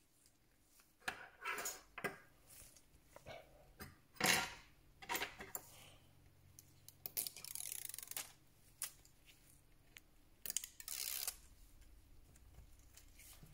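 Small hand tools and phone parts being handled on a repair bench during a smartphone screen replacement: irregular clicks and taps with short scraping or tearing noises. A faint steady low hum comes in about four seconds in.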